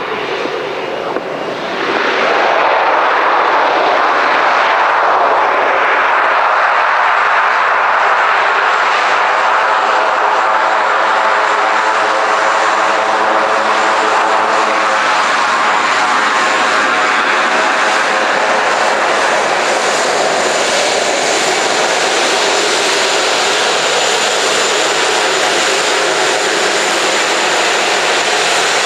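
Beech King Air 250's twin Pratt & Whitney PT6A turboprop engines on the landing roll-out and taxi, growing much louder about two seconds in and then running steadily. A propeller hum lies under a high turbine whine.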